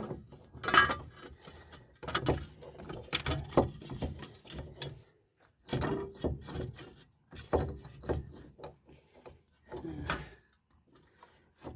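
Irregular knocks and clinks of metal parts being handled and fitted by hand, as a wheel bearing hub and its backing plate are set onto a car's front knuckle.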